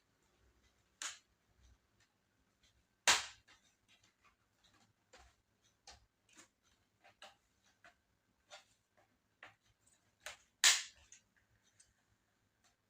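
Irregular sharp clicks and taps of hands working on a laptop's plastic case and parts, with two louder knocks about three seconds in and again near eleven seconds in.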